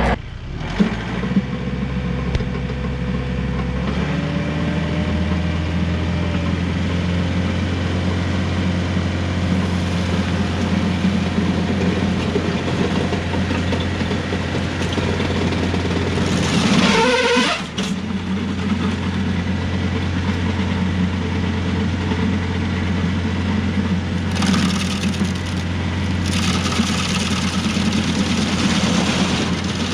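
Rural King RK55 diesel tractor engine running steadily while driving a PTO stump grinder, its pitch stepping up about four seconds in. A loud burst of grinding noise comes about seventeen seconds in, and more grinding noise comes near the end as the cutter works into the wood.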